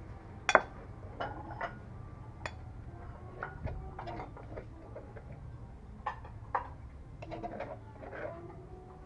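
A metal spoon scraping and knocking inside an earthenware mortar and clinking on a ceramic plate as food is scooped out: a run of irregular clicks and taps, the sharpest clink about half a second in.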